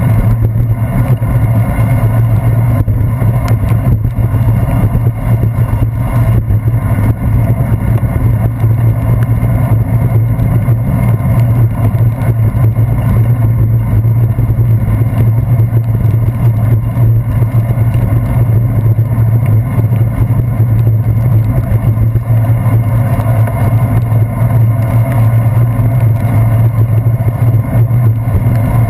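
Steady, loud, muffled rumble of a bicycle riding over wet pavement, picked up through a handlebar-mounted action camera, with motor traffic running alongside.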